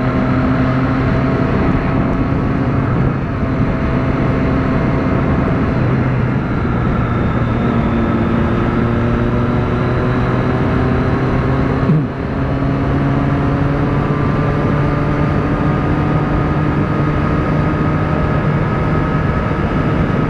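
Motorcycle engine running steadily under load on an uphill highway climb, its note rising slowly, with heavy wind rush over the microphone. About twelve seconds in, the sound dips briefly with a click before the engine note carries on.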